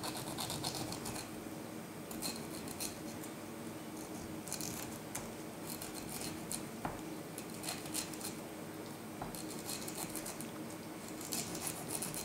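Small kitchen knife sawing through the tough skin around the edge of a pineapple slice, crisp crunching strokes in short bursts every second or two.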